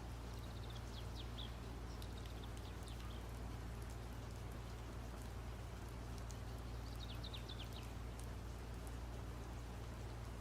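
Steady low hum under clusters of short, high, falling chirps, like a small bird chirping: near the start, about three seconds in and again about seven seconds in.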